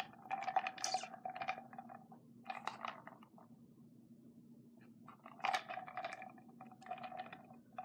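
Small plastic items handled in three short bouts of crackling and clicking, with quieter gaps between.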